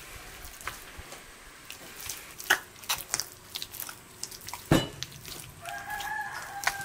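Hands kneading sticky, wet dough in an enamel bowl: irregular squelching slaps and small knocks against the bowl, with one louder thump about three-quarters of the way through.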